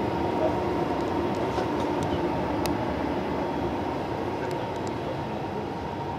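Steady rumble and hum inside a Hungarian CAF-type sleeping-car compartment, with a thin steady tone and a few faint light clicks.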